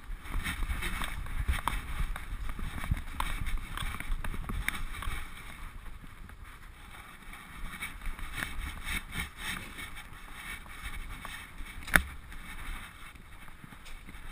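Handling noise from a GoPro strapped onto a dog as it moves about: steady rubbing and rumbling of the camera mount against fur and harness, with scattered small clicks and one sharp knock about twelve seconds in.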